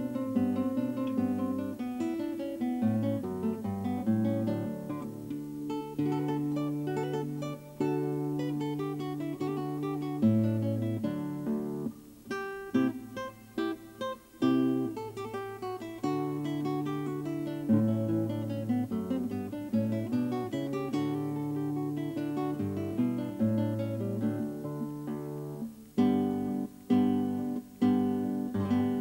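Background music played on acoustic guitar: a run of plucked notes and chords, with sharper, quicker strokes near the end.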